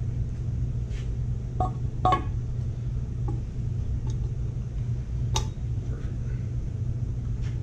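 A handful of sharp metallic clinks and knocks from an intake manifold and its bolts being handled while it is fitted onto a small-block Chevy V8. A steady low hum runs underneath.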